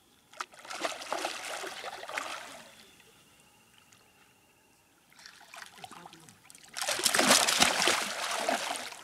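A hooked barramundi thrashing and splashing at the water's surface beside a boat, in three bouts. The last bout, near the end, is the loudest.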